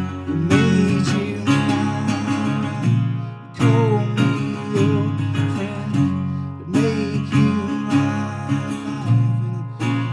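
Live acoustic blues: a metal-bodied resonator guitar strummed in a steady rhythm, with a man singing over it. The playing drops out briefly about three seconds in and comes back with a loud strum.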